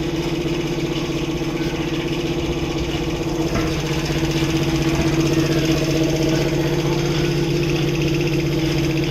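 A motor running with a steady, even drone.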